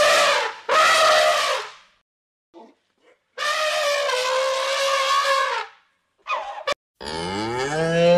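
Cattle mooing: a run of separate long calls, the longest lasting about two and a half seconds, and near the end a deeper call that rises in pitch.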